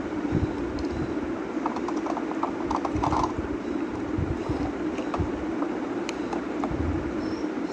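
Plastic toy pieces being handled, making irregular light clicks and taps, with a cluster of quick clicks about three seconds in, over a steady low hum.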